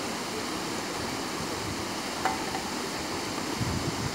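Steady rushing of river water running among boulders, with a single sharp click a little past halfway.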